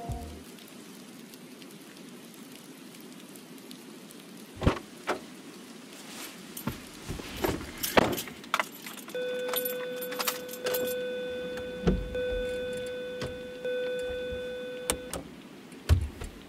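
Scattered sharp clicks and small rattles, as of something being handled, with a steady electronic buzzing tone from about nine seconds in. The tone fades slightly, restarts once and then stops.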